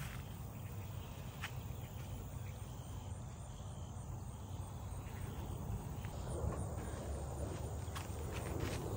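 Insects chirping steadily, a faint high trill, over a low steady rumble, with a couple of faint clicks about a second and a half in and near the end.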